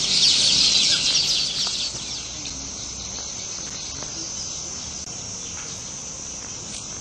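Insects chirping in a loud, dense, high-pitched chorus that fades out about two seconds in, leaving a quieter, steady high trill like crickets.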